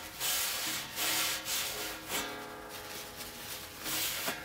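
A towel wiped hard back and forth over the stainless steel pot's surface in repeated rubbing strokes, easing off in the middle: cleaning oil off with acetone before silver soldering.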